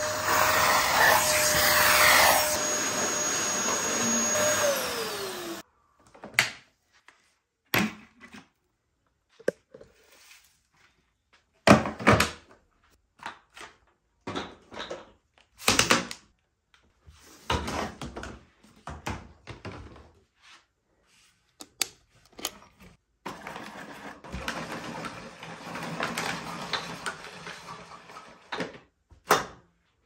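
Dyson DC08 cylinder vacuum running with its crevice tool on carpet; its motor whine winds down about five seconds in and stops. Then come scattered clicks, knocks and rustles as the machine, its wand and hose are handled.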